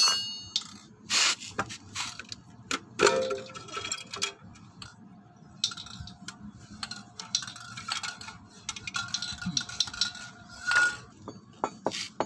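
Scattered metallic clinks and knocks as the CVT transmission cover of a Honda Vario 125 scooter is worked loose and pulled off, exposing the drive pulley, belt and clutch.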